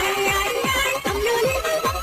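Electronic dance music with a steady kick drum at about two and a half beats a second under a held synth tone.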